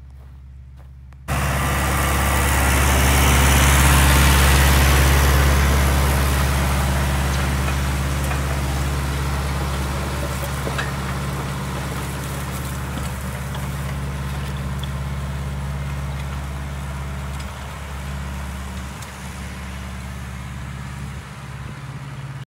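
Tractor engine running steadily under load while it pulls a disc harrow through dry, cloddy soil. The engine comes in abruptly about a second in, is loudest a few seconds later, then slowly gets quieter.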